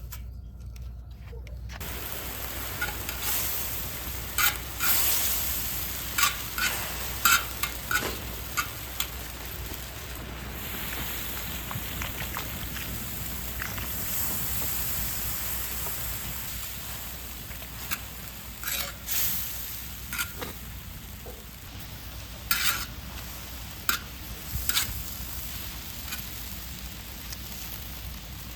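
Kimchi bean-sprout soup bubbling and sizzling in a cast-iron pot-lid pan over a wood fire, a steady hiss that starts about two seconds in. Sharp clicks of a utensil against the pan come through it now and then.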